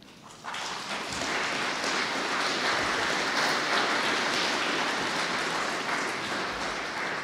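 An audience applauding, the clapping starting about half a second in and holding steady throughout.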